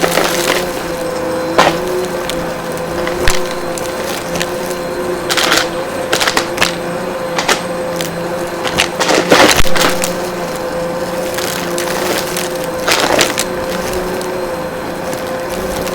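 Vacuum cleaner running with a steady motor whine while it sucks up hard, crunchy debris, which crackles and clicks irregularly through the machine, in louder bursts about a third, three-fifths and four-fifths of the way through.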